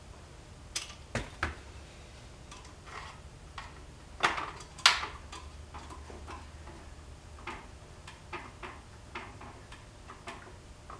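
Metal hand tools and small engine parts clinking and knocking as they are handled and set down on a workbench: three sharp clicks about a second in, a louder cluster of knocks ending in one sharp clack around the middle, then scattered light ticks. A steady low hum runs underneath.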